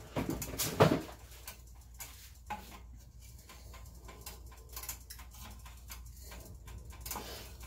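Kitchen handling noises: one sharp knock about a second in, then faint scattered clicks and ticks.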